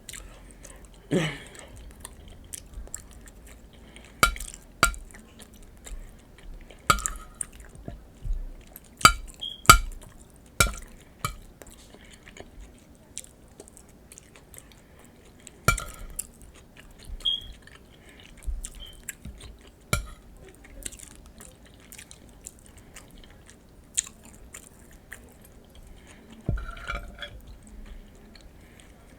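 Close-up chewing and mouth sounds of someone eating nachos, broken by sharp, irregular clicks and taps, like utensils on a plate.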